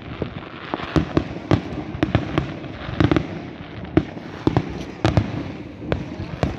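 Aerial fireworks shells bursting in an irregular string of sharp bangs, about two or three a second.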